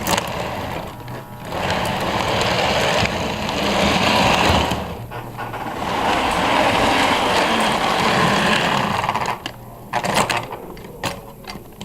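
O scale model steam locomotives running in a triple header, their motors and gearing giving a steady whirring, rushing sound with two brief dips. About nine and a half seconds in it breaks off into a string of sharp clicks.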